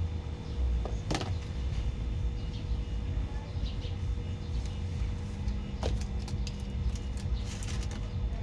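Car engine running with a steady low rumble and a faint steady whine, with a few sharp clicks or knocks over it, about a second in, near six seconds and near the end.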